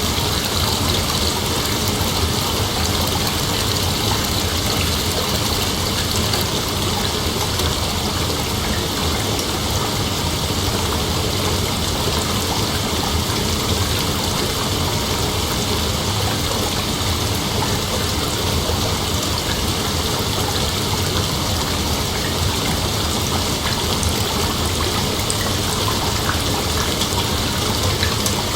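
Heavy rain falling steadily, an even hiss with no sudden thunderclap.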